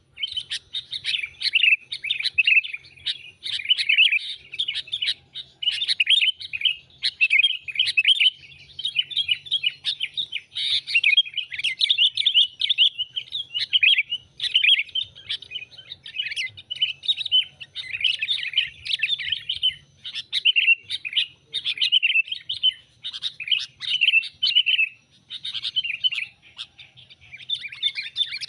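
Sooty-headed bulbuls (kutilang) calling: rapid, chattering chirps in busy phrases with short breaks between them, kept up without pause. This is a lure call for attracting bulbuls.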